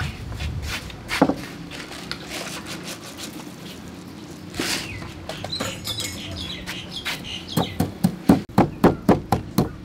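Black peppercorns poured from a glass jar into a stone mortar with a light rattle, then, about three-quarters of the way in, a stone pestle starts pounding them in the mortar: sharp, regular knocks, about four a second.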